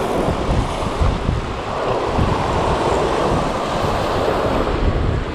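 Sea surf breaking and washing over shoreline rocks, swelling in the middle, with wind buffeting the microphone.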